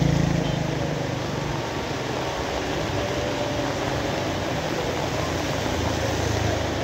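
Steady rain hiss. A low rumble fades out in the first second, and a fainter low hum comes back near the end.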